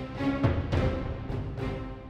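Dramatic background music: held tones with a low drum hit about half a second in.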